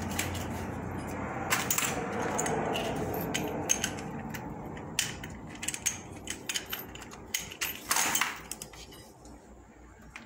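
Irregular metallic clicks and clinks of a wrench working the bolt of a heavy cable lug on a panel terminal as it is tightened, thinning out near the end.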